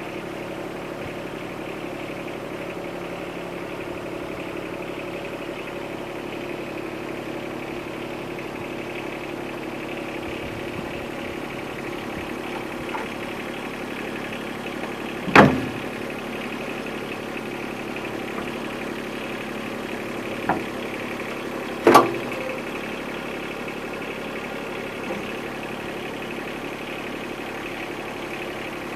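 Yanmar SC2450 compact tractor's diesel engine running steadily near idle, with three sharp knocks from the loader and its clamp-on pallet forks, one about halfway through and two more about five and six seconds later, the last the loudest.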